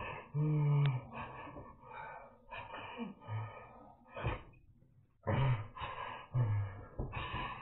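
A man's low moans alternating with harsh, gasping breaths during a tonic-clonic seizure episode, several separate groans broken by short pauses.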